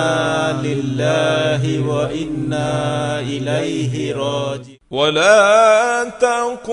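A man's voice chanting in long, wavering melodic phrases over a steady low hum. The phrase breaks off just before five seconds in, and a new one begins with a rising slide.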